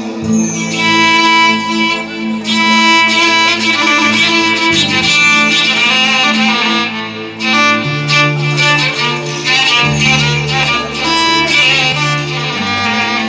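Instrumental interlude of an Arabic mawwal accompaniment: a violin plays a melodic line over a sustained low bass that shifts pitch a few times.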